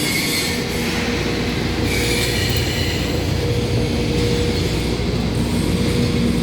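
Steady industrial din of a welding and fabrication workshop: continuous machinery noise with a low rumble and a faint steady hum.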